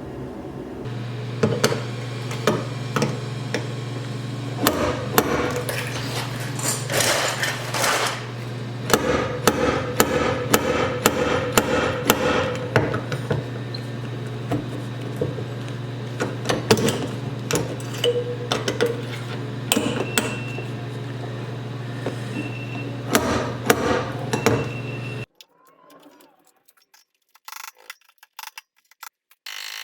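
Repeated sharp metal knocks of a slide hammer yanking on pins welded to a car fender to pull out dents, over a steady low hum. Everything cuts off suddenly about 25 seconds in, leaving only faint clicks.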